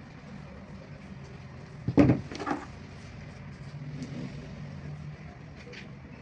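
Two sharp knocks about half a second apart, about two seconds in, over a steady background hum.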